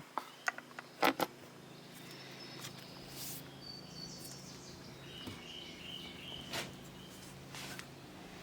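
Five or six sharp clicks and clanks within the first second and a half as a chainsaw's chain and bar are handled, then small birds chirping faintly in the background.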